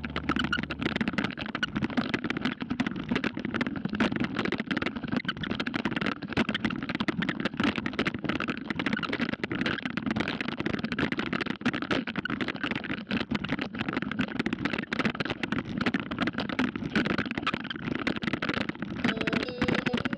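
Road bicycle jolting over cobblestones, picked up by a camera mounted on the bike: a continuous dense rattle and clatter of the frame and mount shaking on the stones.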